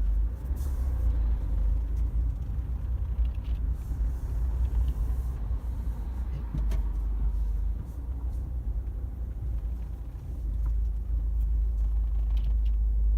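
Steady low rumble of road and engine noise inside the cabin of a moving 2018 Mercedes-Benz A-Class, with a few faint ticks.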